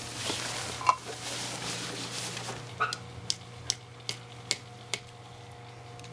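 Scraping and rustling with a single sharp click, then six sharp knocks in an even rhythm, about two and a half a second.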